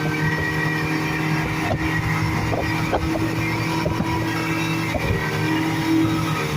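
Speedboat engine running steadily at speed, with a few faint knocks.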